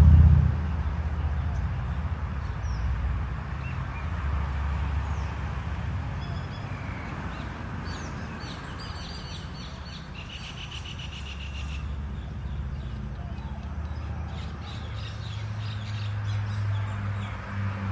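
Mynas calling and chattering, with a short fast trill about ten seconds in, over a steady low rumble of a vehicle engine.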